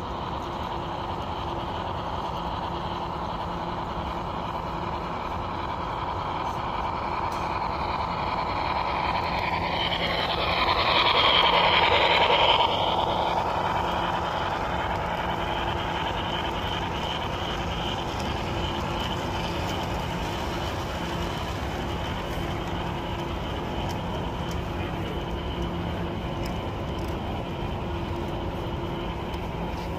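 HO scale model train running on a club layout: a steady hum with a few held tones, and a louder stretch with gliding tones from about ten to thirteen seconds in.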